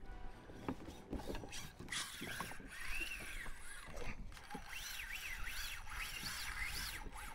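Drag of a Penn Spinfisher 6500 Live Liner spinning reel ratcheting as a hooked fish pulls line off. Rapid clicking starts about a second in, and from about two seconds a whine rises and falls in pitch as the run speeds up and slows.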